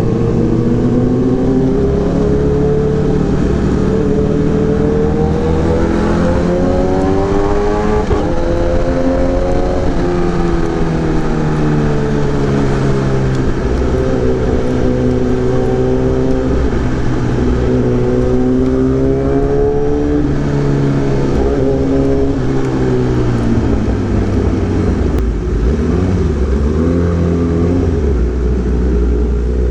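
Kawasaki ZX10R inline-four engine running through an Arrow racing exhaust while being ridden, its revs climbing and falling several times with the throttle, dropping back lower near the end.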